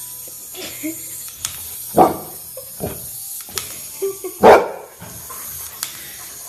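Large white dog barking in play at a small wind-up toy: two loud single barks about two seconds and four and a half seconds in, with softer woofs between.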